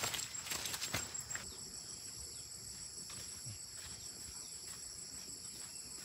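Steady high-pitched chorus of insects, with a few short knocks in the first second and a half.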